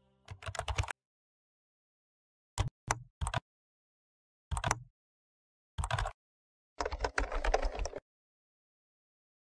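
Bursts of rapid clicking in about seven separate clusters, the last and longest near the end, with dead silence between them.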